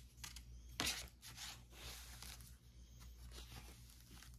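Soft rustling of paper and card as the pages of a handmade junk journal are handled and turned, with one sharper rustle a little under a second in.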